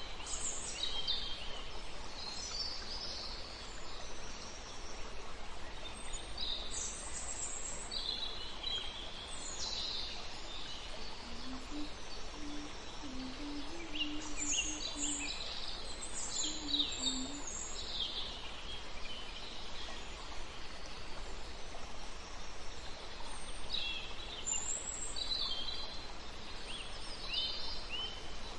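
Birds chirping and calling in scattered clusters of short high notes over a steady background hiss, with a faint low-pitched call around the middle.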